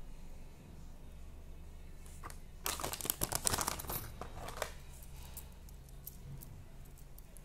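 Plastic packaging crinkling in a burst of about two seconds, starting around three seconds in, as a hand reaches into it and pulls a necklace out.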